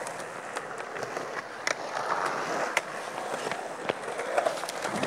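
Skateboard wheels rolling on concrete, with scattered sharp clacks and knocks of boards.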